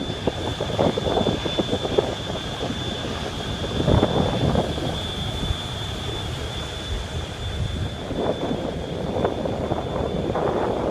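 Car ferry's engine running under way, a steady low rumble, with wind gusting across the microphone. A thin, steady high whine sits over it.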